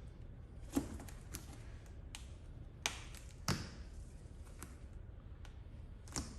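A few sharp, scattered taps and clicks of hand work on a car door, about four in all, with two close together around the middle.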